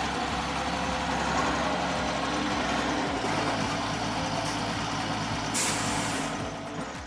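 Sound effect of a heavy truck engine running as the truck drives off, its low note shifting about three seconds in, with a short air-brake hiss near the end.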